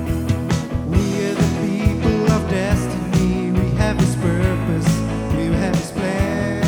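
Worship band music with a steady drum beat, guitar and singing.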